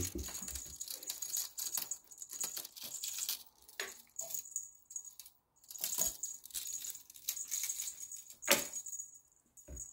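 Jingling and rattling of a cat wand toy as it is flicked about and batted by cats, in irregular bursts with short pauses, and a louder thump about eight and a half seconds in.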